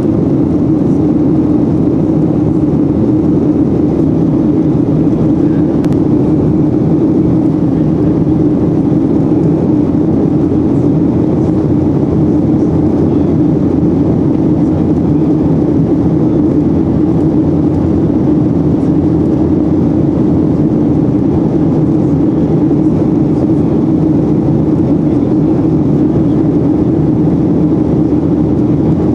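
Steady low drone of cabin noise inside a Boeing 737-800 in flight: its CFM56-7B turbofan engines and the rush of air past the fuselage, heard from a window seat over the wing.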